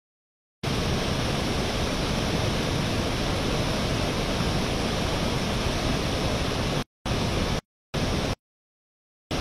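A loud, even hiss of noise that starts abruptly about half a second in, then cuts out and back in sharply three times near the end.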